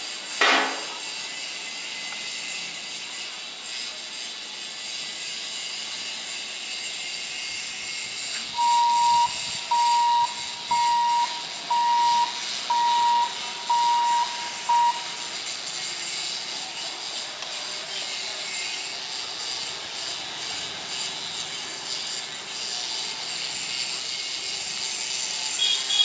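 Seven short electronic beeps on one pitch, evenly spaced about once a second, over a steady hiss. A brief loud sound comes about half a second in.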